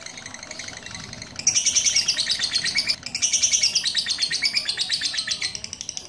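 Lovebird chattering in a fast, high run of chirps, the long 'ngekek' song that lovebird keepers breed and train for. It grows loud after about a second and a half, breaks off briefly halfway, and eases off near the end.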